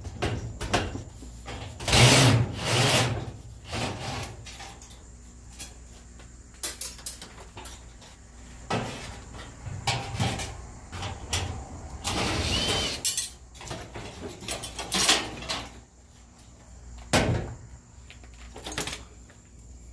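Sheet-metal panels of a front-load dryer being unscrewed and pulled apart: irregular clanks, knocks and rattles, with a longer stretch of grinding noise about twelve seconds in.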